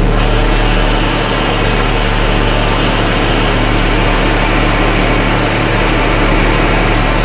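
Harsh noise from a modular synthesizer: a loud, dense, unbroken wall of distorted noise over a steady low hum. It comes from a no-input Clouds-style patch, with an ErrorTron sequenced by a Buchla array and sent into a Mutable Instruments Beads that is tuned down to soften the screeching.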